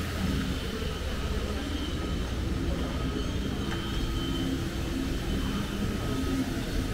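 A vehicle running with a steady low rumble and faint steady whining tones over it.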